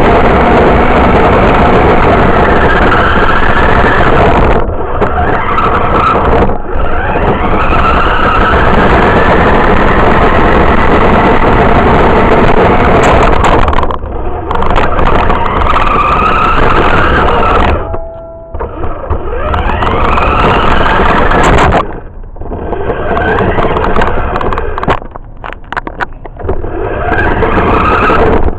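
Radio-controlled car's motor heard from a camera riding on the car, loud and close, its whine rising and falling in pitch as the car speeds up and slows. Several times it lets off and the sound dips briefly before picking up again.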